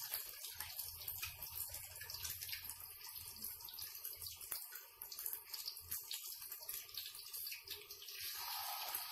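Spoonfuls of sardine-and-egg batter frying in hot oil in a wok: a steady sizzle with dense fine crackling.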